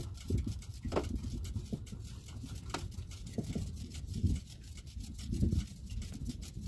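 Low, irregular thuds of small waves slapping a small wooden boat's hull, with a few faint clicks.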